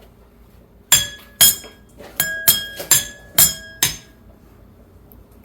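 Drinking glasses struck in a tapping pattern: about seven sharp clinks over three seconds, each ringing briefly, the glasses sounding different notes.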